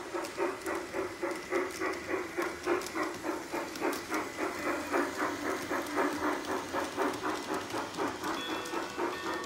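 G scale model steam locomotive chuffing as it runs along the track, a steady rhythm of about three to four chuffs a second.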